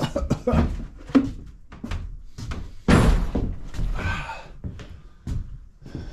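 Irregular knocks and thumps, with the loudest thump about three seconds in; no engine is running.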